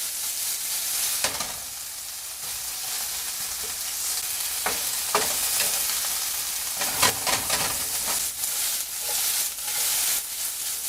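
Sliced chicken breast sizzling in oil in a sauté pan on medium-high heat, with the scrape and clack of a paddle stirring and turning the pieces now and then.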